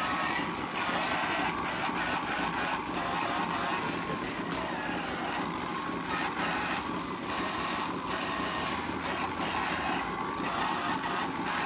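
Handheld rotary teat-cleaning brush running on a dairy cow's teats, its motor whirring steadily as it sprays and scrubs with water, over the steady machine noise of a milking parlour. A few light clicks and knocks.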